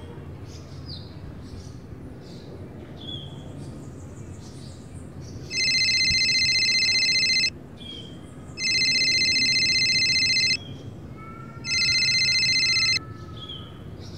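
Mobile phone ringing with an electronic ringtone: three loud rings of about two seconds with a second's gap between them, starting about halfway through, the third cut short as the call is answered. Birds chirp throughout.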